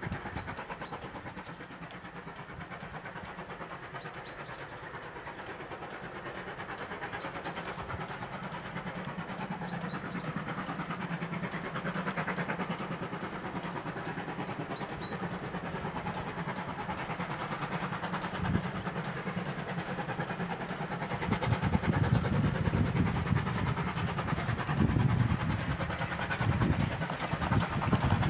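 GWR 2800 class 2-8-0 steam locomotive 2857 working a passenger train past, its running noise and exhaust growing gradually louder as it nears. Heavier low thumping sets in during the last several seconds.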